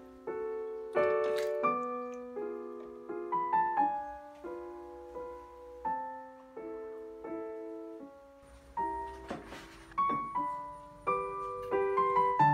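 Background piano music: a gentle melody of single notes and soft chords, each struck note dying away.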